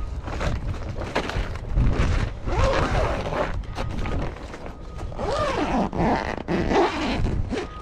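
The zipper on a plastic-mesh greenhouse cover is pulled along its door seam in a few noisy strokes, while the cover's plastic sheeting rustles under the hand.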